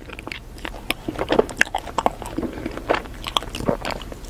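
Close-miked eating sounds of a person biting into and eating ice cream: wet mouth smacks and clicks, coming irregularly several times a second.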